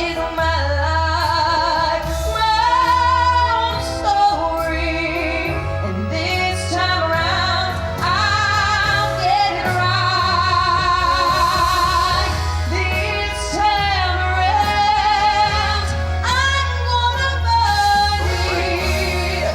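Music: a woman singing with wide vibrato on long held notes over instrumental accompaniment with a steady low bass.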